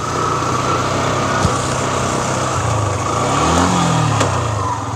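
Motorcycle engine running at low speed on a rough dirt trail, its pitch rising and falling again about three to four seconds in, with a steady high whine alongside.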